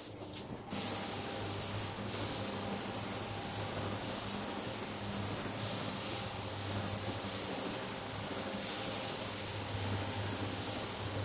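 Single-disc rotary scrubbing machine working a wet, foamy rug: a steady motor hum under a constant wet hiss of the brush, starting about a second in after a few brief knocks.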